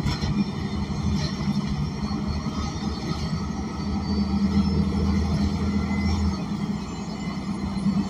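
Inside an ElDorado National Axess BRT bus: its Cummins Westport L9N natural-gas engine drones steadily under the cabin's road rumble. The lowest part of the drone drops away about six seconds in.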